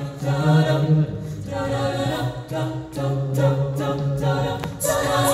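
High-school a cappella group singing sustained chords in close harmony through handheld microphones, a sung bass line holding low notes beneath them. The sound swells louder near the end.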